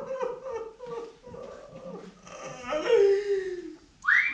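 Whimpering and howling cries, with a long wail sliding down in pitch about three seconds in.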